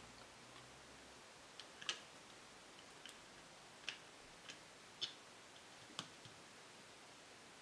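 Near silence broken by about eight light, sharp clicks and taps at uneven intervals, from small engine parts and tools being handled.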